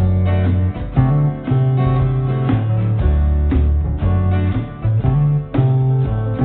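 Background music led by a plucked acoustic guitar, with a deep bass line changing notes about twice a second.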